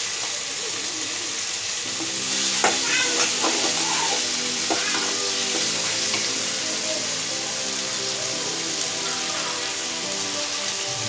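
Prawns and onion frying in hot oil in a pan with freshly added garlic and cumin paste, sizzling steadily while a metal spatula stirs and scrapes, with a few sharp knocks of the spatula on the pan. The sizzle grows a little louder about two seconds in.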